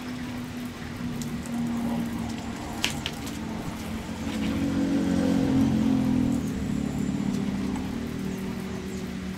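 Water spraying as a motorcycle is washed, with a low steady hum underneath that grows louder around the middle and a few sharp clicks.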